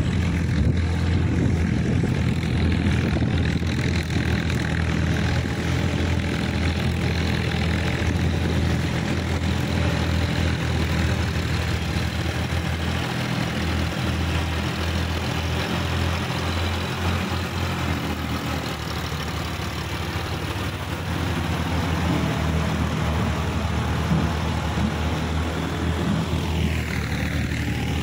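A Sonalika DI-50 Rx tractor's diesel engine runs steadily under load as the tractor pulls an implement through a muddy, wet field.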